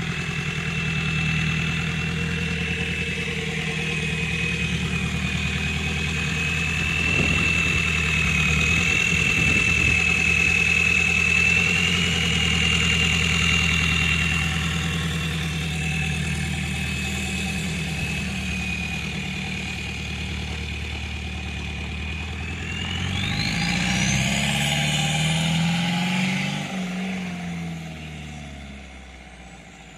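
VW AAZ 1.9-litre four-cylinder turbodiesel with a K03 turbo and a straight-pipe exhaust, idling with a steady high turbo whistle. About three quarters of the way in it is revved once: the whistle sweeps sharply up in pitch as the turbo spools. Near the end the engine drops back and the whistle falls away.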